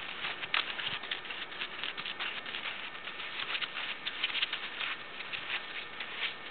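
Steps of a walking pony on freshly trimmed hooves, together with a person's footsteps, crunching on a wet gravelly driveway: an irregular run of short, crisp ticks and crunches.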